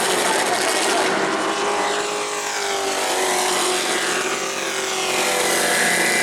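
A pack of race trucks' engines running at speed on a short oval, their pitch sweeping up and down as trucks pass.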